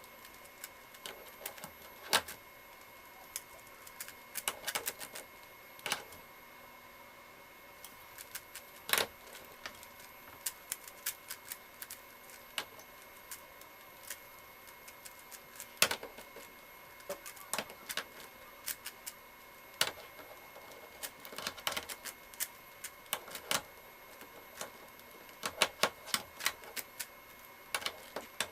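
Irregular plastic clicking and clacking of a ShengShou 5x5 speedcube's layers being turned one-handed, in uneven bursts with pauses, with a few louder knocks as the cube is set against the desk. A faint steady high whine runs underneath.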